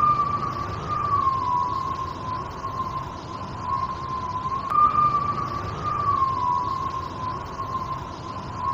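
Strong wind whistling through a slightly open window: one high, steady whistle that slowly wavers up and down in pitch like a tune, over the rushing noise of the wind.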